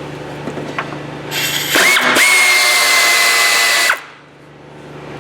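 A hand-held power tool runs for about two and a half seconds, a steady high whine over a loud hiss, then stops suddenly.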